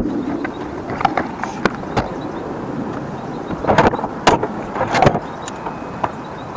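Steady vehicle noise with several short knocks and clatters, clustered about four and five seconds in.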